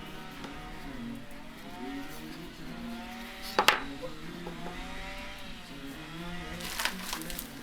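Background music with a gently rising and falling melody, broken by a sharp click about halfway through and a few more clicks near the end.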